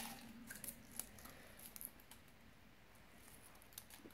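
Near silence with a few faint rustles and clicks: folded paper lots being stirred and drawn from a plastic cup.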